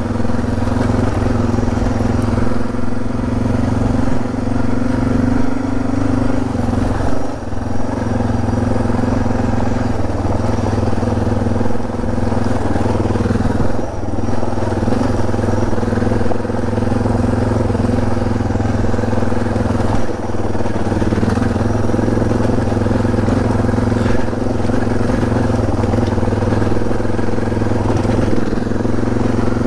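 Suzuki DR650's single-cylinder four-stroke engine running at steady revs, with brief dips in throttle a few times.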